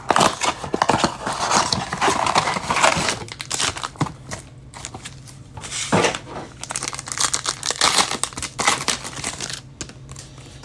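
Crinkling and tearing of packaging as a blaster box of football trading cards and its packs are torn open by hand, in irregular bursts that die down near the end.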